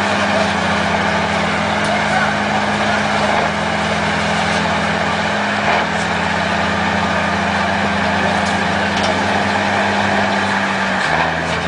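Heavy truck's diesel engine running steadily. Its note shifts slightly about halfway through and again near the end, with a few light knocks over it.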